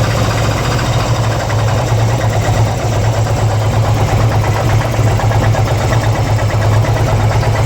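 2002 Harley-Davidson Ultra EFI's Twin Cam 88 V-twin engine idling steadily, with a rapid, even ticking over the engine note. This is the unexplained engine noise the owner cannot trace.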